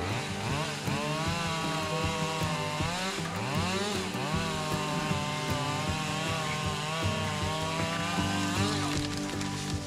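Gas chainsaw running and cutting wood, its engine revving up and down several times.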